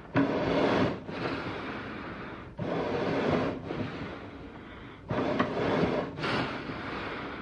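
Eerie animal breathing: slow, heavy breaths in a steady rhythm. Each cycle is a louder breath of about a second followed by a softer, longer one, and the cycle comes round three times.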